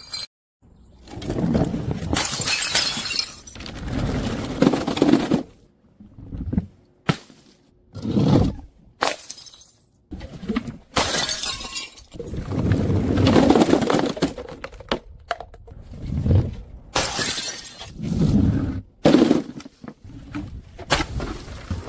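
Glass bottles shattering one after another: a series of separate crashes, each a sudden break with a short clattering tail, with brief gaps between.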